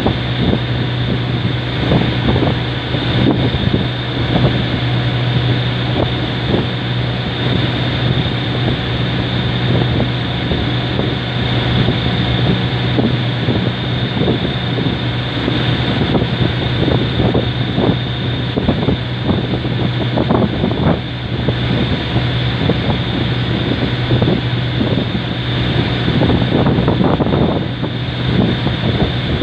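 Boat engine running steadily with a constant low drone, with wind buffeting the microphone.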